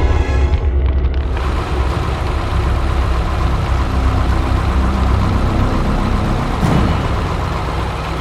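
Heavy vehicle engine running with a steady low rumble under a rushing noise, a cartoon engine sound effect, swelling briefly near the end.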